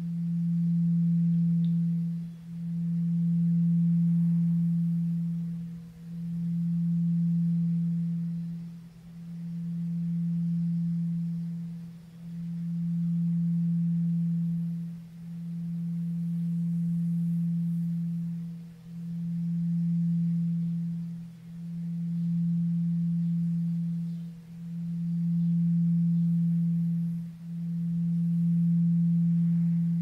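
Sustained Tibetan singing bowl tone pitched on E at 164 Hz: a single steady low hum with a faint higher overtone, swelling and fading about every three seconds.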